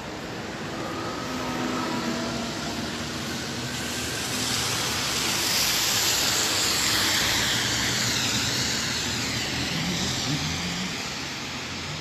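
Steady hiss of rain and wet ground, with a vehicle's tyres swishing on the wet road: the hiss swells over a few seconds to a peak about halfway through, then fades.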